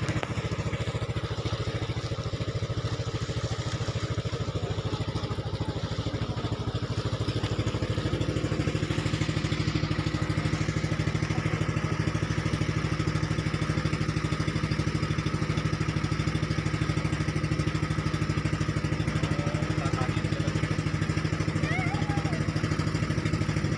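Outrigger bangka's engine running steadily while the boat is under way, a fast, even chugging that holds the same level throughout.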